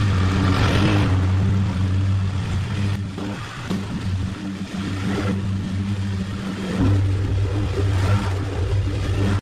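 An engine running steadily with a constant low hum. It eases off from about three seconds in and picks up again about seven seconds in.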